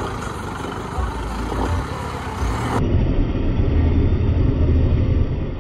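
Motor vehicle running on the road, a continuous low engine and road rumble. The sound turns abruptly duller a little past halfway.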